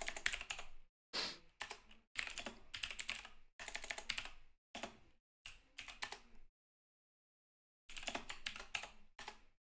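Typing on a computer keyboard: quick runs of keystrokes, broken by a pause of about a second and a half after the middle, then a few more keystrokes.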